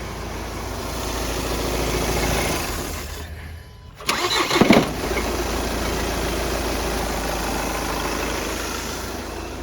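Volkswagen Passat engine running with a knock, switched off about three seconds in and restarted a second later with a loud rattle as it catches, then running steadily again. The mechanic puts the knocking and the rattle on starting down to a faulty flywheel.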